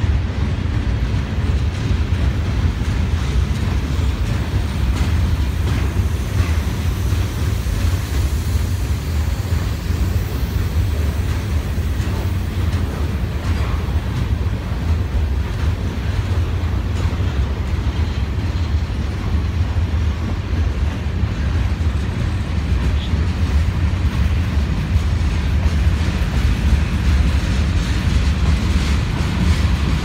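Norfolk Southern freight train's cars rolling past, a steady rumble of wheels on the rails.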